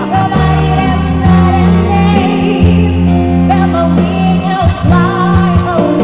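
A woman singing into a microphone, amplified, with a live band behind her. Her voice wavers with vibrato over long-held bass notes and chords.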